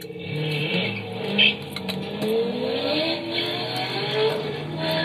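Chevrolet Corvette V8 engines revving hard as the cars accelerate away from a standstill. The pitch climbs steadily, then drops and climbs again near the end as they shift up a gear.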